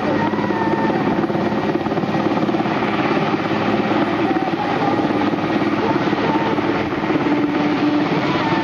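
Aérospatiale Puma military helicopter hovering low, its rotor giving a steady rapid beat under a continuous turbine whine.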